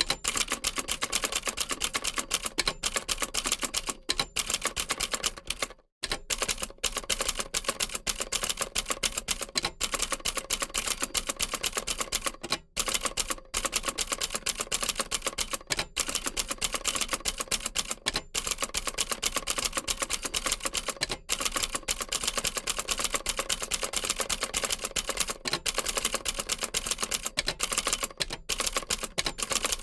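Old manual typewriter being typed on rapidly: a dense run of key strikes clacking against the platen, with short pauses now and then, the longest about six seconds in.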